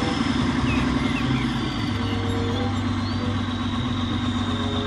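Heavy dump truck's diesel engine running steadily while its tipper bed is raised to dump a load of sand.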